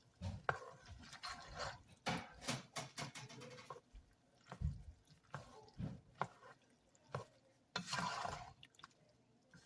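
Cooked elbow macaroni being stirred with evaporated milk: soft wet squelching with scattered clicks of the utensil against the side of the container, a longer wet stir near the end.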